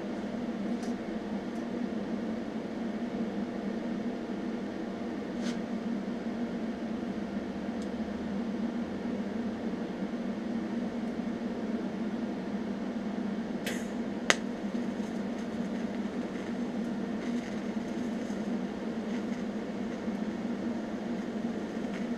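Steady electrical hum of a TIG welding machine standing by, its arc not yet struck. A few faint ticks and one sharp click come about 14 seconds in.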